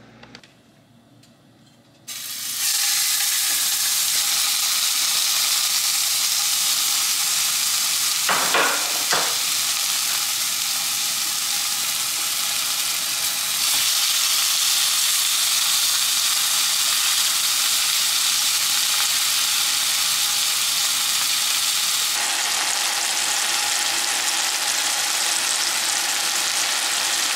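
Ground-chuck burger patties sizzling in olive oil in a stainless steel frying pan: a steady frying hiss that starts about two seconds in.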